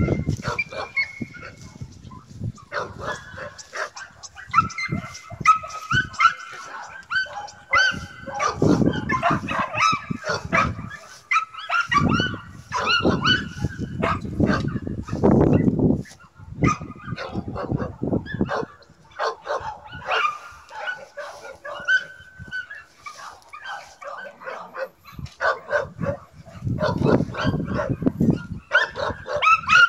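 Dog barking and yipping in many short calls throughout, with several stretches of low rumbling noise.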